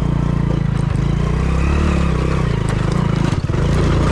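Hero Splendor motorcycle's single-cylinder four-stroke engine running under load while being ridden over a rough off-road track, a steady low engine note with a brief dip about three and a half seconds in.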